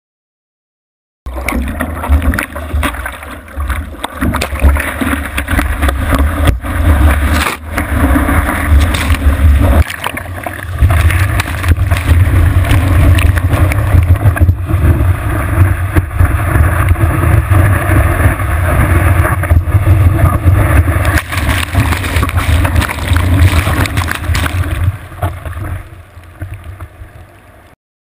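Surf whitewater rushing and splashing, with wind buffeting an action camera's microphone in a heavy low rumble. It starts abruptly about a second in, breaks off briefly now and then, and fades near the end.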